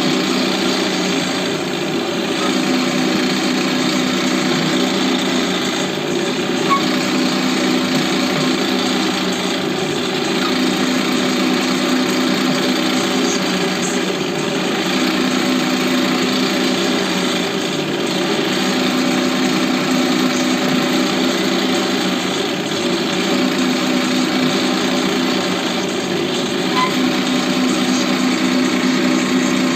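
Homemade hole-drilling machine running continuously, a steady mechanical hum that swells and eases every few seconds.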